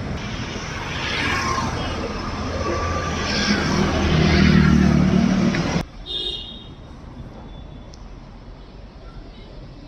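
Road traffic: vehicle engines running close by with a low rumble. About six seconds in it cuts abruptly to quieter street noise, with a short high-pitched tone.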